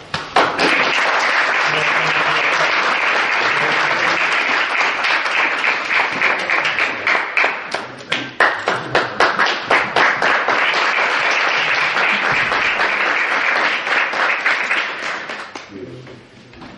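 Audience applauding: a long round of clapping that thins briefly about halfway through, swells again, then dies away near the end.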